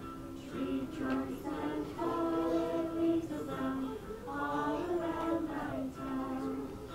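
A group of preschool children singing a song together in unison, in phrases of held notes.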